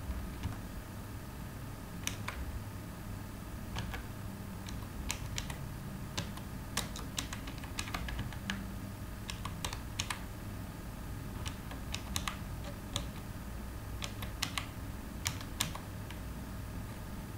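Computer keyboard being typed on: slow, uneven keystroke clicks, a few at a time with pauses between, over a steady low hum.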